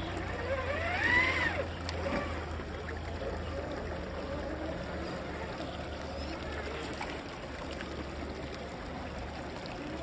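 Electric motor of a Traxxas TRX6 RC crawler whining as the truck wades a shallow stream, its pitch rising and falling about a second in, over the sloshing of water around the wheels.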